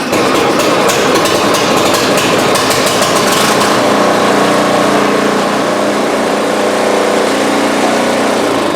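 Gasoline snow blower engine, just pull-started, running loudly and steadily; its sound evens out into a steadier hum about four seconds in.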